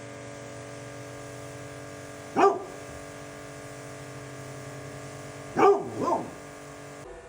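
A dog barking at dinner time, demanding to be fed: one bark a couple of seconds in, then two quick barks near the end, over a steady hum.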